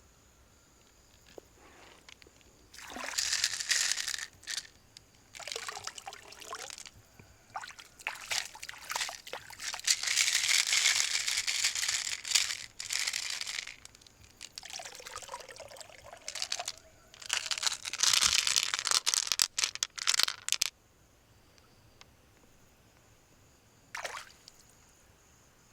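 Water pouring and splashing in several bursts of a few seconds each, with a longer pour in the middle; it stops near the end, with one brief splash after.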